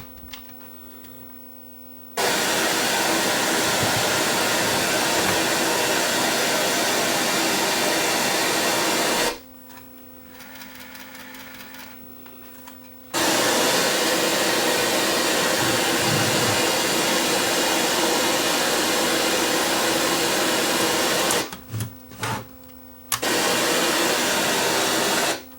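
Loud static hiss from a Sony EVS-7000 Hi8 video deck's audio output. It cuts in and out abruptly three times, with a steady low hum in the gaps. This is the deck's audio-noise fault.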